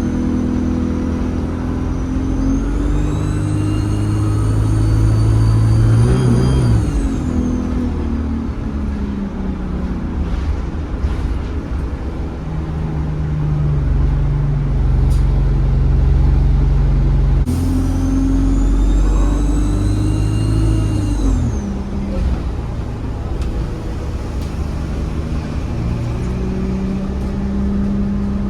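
ADL Enviro 200 bus engine pulling under load, its turbocharger whistling: a high whine rises in pitch as the turbo spools up, then falls away. This happens twice, about 3 s in and again about 18 s in, with a steadier, lower engine tone in between.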